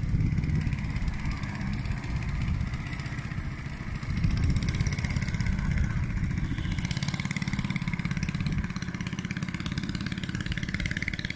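Long-tail boat engine running under way, a steady low pulsing drone with a higher-pitched component that climbs near the end as the boat speeds off.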